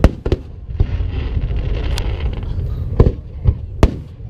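Fireworks bursting overhead: a string of about seven sharp bangs at uneven intervals over a steady low rumble. The loudest comes right at the start and another near the end.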